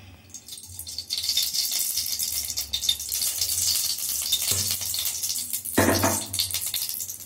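Hot cooking oil sizzling and crackling in a stainless steel pan, starting just after the opening and quickly building to a steady dense crackle. Two brief dull thuds sound in the second half, the later one louder.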